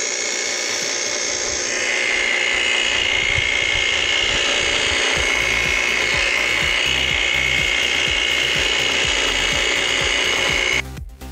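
Kobalt 80-volt cordless hedge trimmer running, its blades cutting through a small-leaved hedge: a steady high whine that grows louder about two seconds in and cuts off suddenly near the end.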